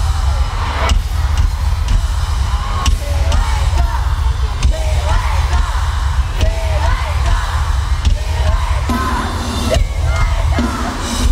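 Live band music over a concert sound system, heard from among the audience: a heavy, steady bass with drum hits every second or two, and fans yelling and whooping over it.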